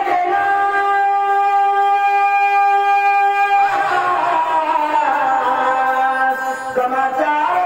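A man singing devotional music, holding one long steady note for about three and a half seconds, then moving into a melodic phrase.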